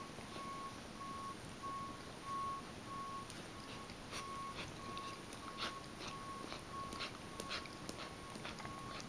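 A dog coughing: several short coughs, mostly in the second half. Under them a faint electronic beep repeats steadily, about one and a half times a second.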